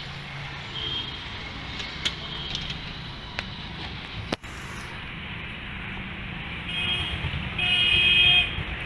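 Street traffic: a steady low rumble of road vehicles. Near the end a horn beeps once, for under a second, the loudest sound in the stretch.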